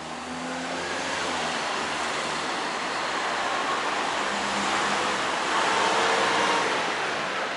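Road traffic on a wide city street: cars and trucks driving past with tyre and engine noise, growing louder as a vehicle passes close about six seconds in.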